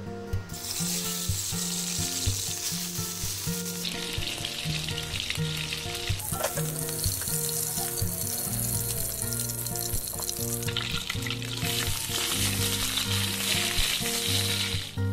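Shrimp and orlians sizzling as they fry in hot oil in a wok, turned with a wooden spatula. The sizzle starts about half a second in as they go into the oil and eases twice, with background music underneath.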